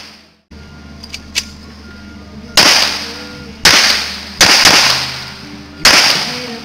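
Four pistol shots from a .45 M1911 fired at an uneven pace, under a second to about a second and a half apart. Each is a sharp crack with a short ringing tail. Two faint clicks come about a second in, before the first shot.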